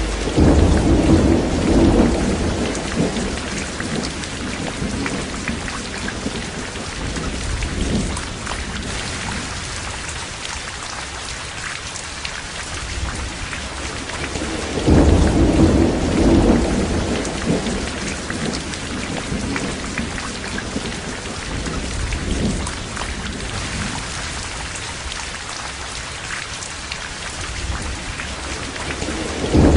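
Steady heavy rain with rolls of thunder: one as it begins, another about halfway through, and a third right at the end.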